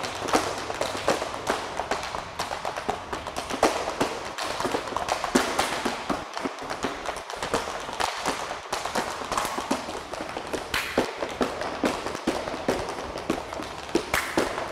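Tap shoes of two dancers striking a plywood board, beating out rapid, dense runs of sharp taps with no steady pause.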